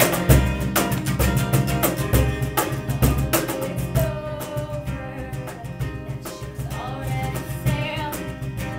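Live acoustic music: a strummed acoustic guitar and quick hand strikes on a wooden box drum (cajón). A woman's singing comes in around the middle.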